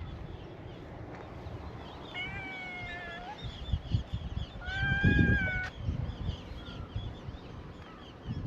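Stray cats meowing: two long, fairly level meows, one about two seconds in and a louder one about five seconds in, with fainter meows from other cats behind them. A low rumble comes in under the louder meow.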